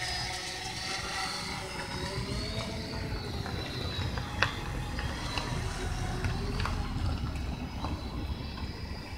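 3DR Solo quadcopter's propellers humming in flight, several tones that waver up and down in pitch as it manoeuvres, over a low rumble. A single sharp click about four and a half seconds in.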